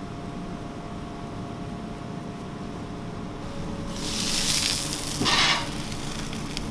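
A rolled chicken shawarma wrap sizzling on a hot flat-top griddle: a steady background hum, then a hissing sizzle that starts about four seconds in as the wrap goes onto the griddle, swelling briefly again about a second later.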